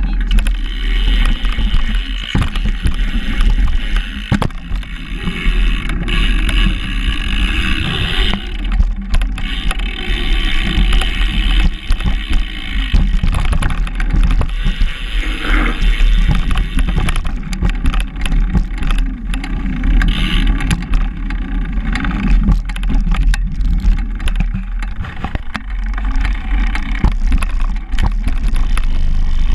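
Bicycle riding over wooden ramps, berms and a turf track, heard from on the bike: a continuous rolling rumble of the tyres with frequent small knocks and rattles as the wheels hit the boards and transitions.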